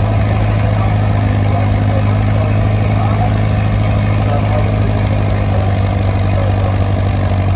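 Vintage tractor engine running at a steady, unchanging low note.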